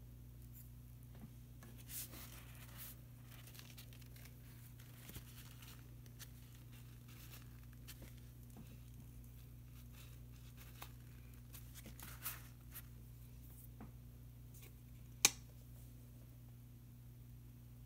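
Faint scratchy brush-and-paper handling sounds of painting: soft scraping strokes and rustles, with one sharp click about fifteen seconds in, over a steady low electrical hum.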